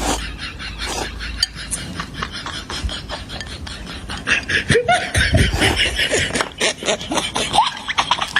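People eating noisily: chewing and lip-smacking with small clicks of chopsticks on bowls, and a short burst of laughter about five seconds in.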